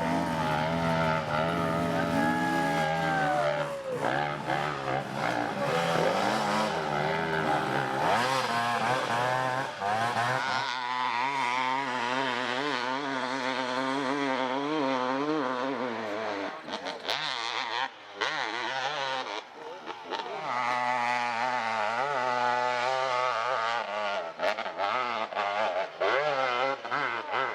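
Dirt bike engines revving up and down as the bikes are ridden over rough off-road ground, the pitch rising and falling constantly with throttle changes.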